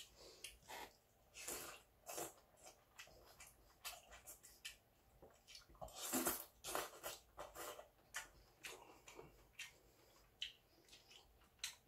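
Mukbang eating sounds: a man slurping and chewing mouthfuls of seonji-guk (ox-blood soup) from a bowl, a run of short, irregular wet noises, the loudest slurp about six seconds in.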